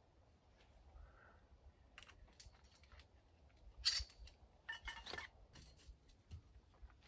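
Metal awning pole being handled and extended: scattered sharp clicks and clinks, the loudest about four seconds in, with a quick cluster about a second later.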